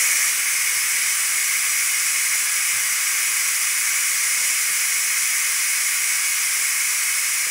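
Ninja Foodi pressure cooker venting steam through its pressure-release valve in a manual quick release: a loud, steady hiss.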